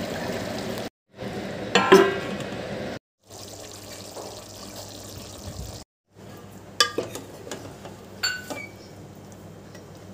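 A wooden spatula stirs chicken curry in an aluminium pot, clicking and clattering against the pot's side over a wet, simmering background. The loudest clatter comes about two seconds in, with more knocks later on. The sound cuts out briefly three times.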